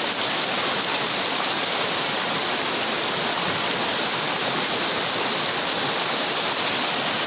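Flash-flood water rushing past in a steady, unbroken flow.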